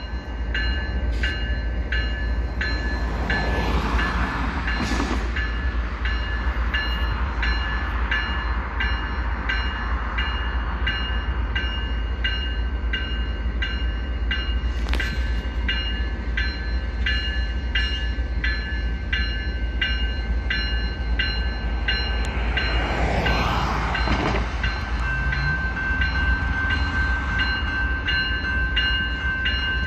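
Diesel freight locomotives idling with a deep, steady rumble while a bell dings over and over at an even pace. Twice a longer rush of noise rises over it.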